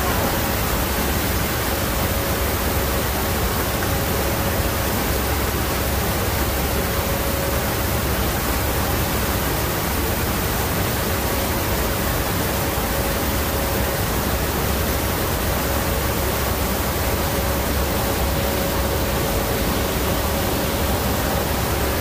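Steady loud roar of rushing air and engines inside a military transport aircraft's cargo hold with the paratroop door open, with a faint steady hum running under it.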